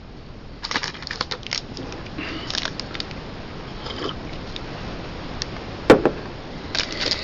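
Trading cards being handled and shuffled on a table: scattered light rustles and clicks, with one sharp tap just before six seconds in and a cluster of rustling near the end.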